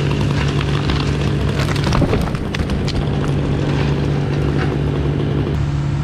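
A chainsaw-felled cottonwood trunk comes down, with sharp cracking and a crash of breaking limbs about two seconds in. A machine engine runs steadily underneath.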